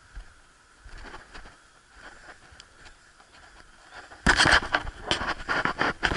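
Action camera being handled: faint scattered crackles, then about four seconds in a loud run of close rustling and scraping against the camera and its microphone that lasts about two seconds as the camera is swung round.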